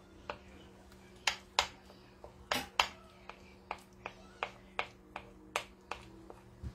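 A spoon clinking against a bowl in quick, irregular taps, about two or three a second, while chili powder is stirred with a little water into a paste.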